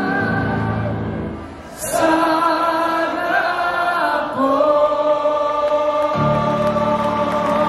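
Live band music with a group of voices singing together in long held notes, the accordion in the mix. The sound dips briefly just under two seconds in, then comes back loud.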